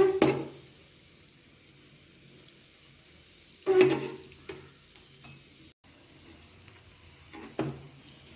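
A metal spatula scrapes and clinks against a nonstick frying pan a few times as shallow-fried spring onion pakoras are flipped. Faint steady sizzling of the oil continues underneath.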